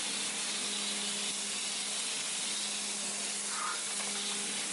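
Pressure washer spraying a steady jet of water, a continuous hiss over the even low hum of its pump motor.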